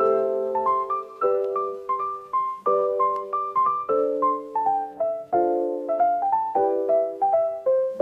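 Background music: a piano or electric piano playing a gentle melody over held chords, notes struck in a steady, unhurried rhythm.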